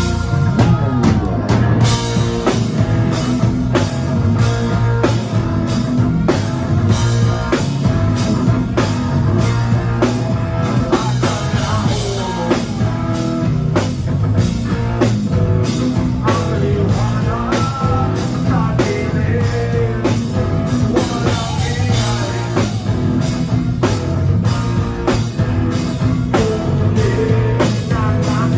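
Live rock band playing loudly, with distorted electric guitars, bass and a drum kit keeping a steady beat, and a singer's voice over them.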